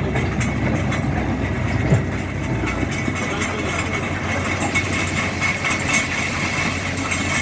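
Tracked hydraulic excavator's diesel engine running steadily as the machine works in shallow river water, with a brief surge about two seconds in.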